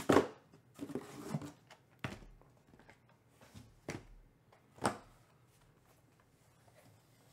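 Sealed, shrink-wrapped cardboard trading-card boxes being pulled from their case and set down and stacked on a tabletop: a few short knocks and scrapes. The loudest comes right at the start and another about five seconds in.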